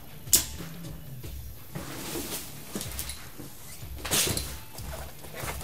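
Items being handled and rummaged through in a cardboard box: a sharp knock near the start, then scattered clicks and knocks, and a louder rustling burst about four seconds in.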